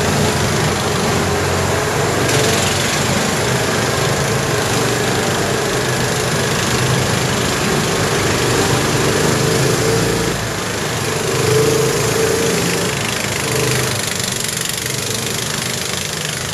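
Off-road buggy engine running while driving, a steady small-engine drone under a constant noisy rush; it eases briefly about ten seconds in, then picks up again.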